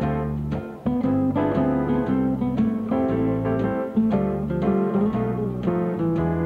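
Background music led by a plucked guitar, with notes picked out one after another over held low bass notes.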